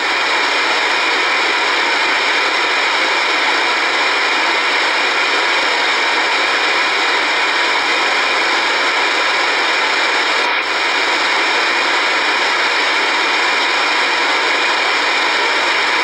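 Steady hiss of static from an Icom communications receiver tuned to 119.900 MHz AM in the aircraft band: the open-squelch noise of an empty channel between transmissions. It drops out briefly about ten and a half seconds in.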